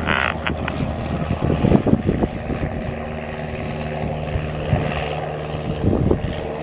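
Single-engine piston propeller plane, a Cessna 172 Skyhawk, droning steadily, with a steadier engine hum settling in a few seconds in.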